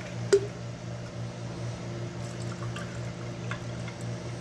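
Water pouring from a glass jug over ice cubes into drinking glasses, with a sharp clink about a third of a second in.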